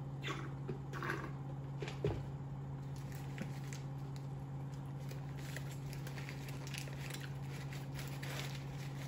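A few short slurps of a drink through a straw, a thump about two seconds in as the cup is set down, then bites into a patty melt and soft, wet chewing. A steady low hum runs underneath.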